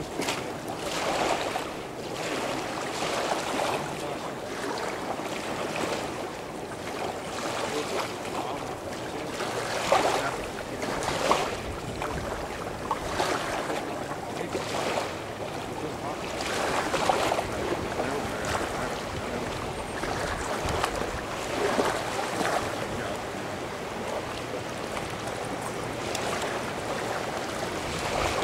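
Small waves washing onto a stony shore, rising and falling every two to three seconds, with wind on the microphone. A couple of sharp clicks come about ten seconds in.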